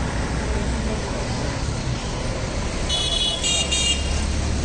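Steady street traffic rumble, with a high-pitched horn tooting three short times about three seconds in.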